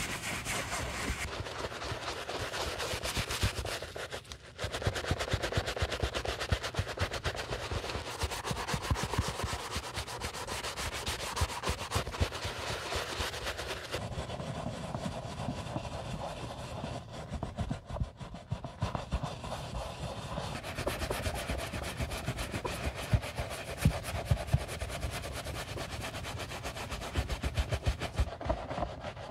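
Wooden-handled bristle brush scrubbing the tongue and inner lining of a white Adidas Superstar sneaker with foamy cleaner, in rapid back-and-forth strokes, with a brief pause about four seconds in.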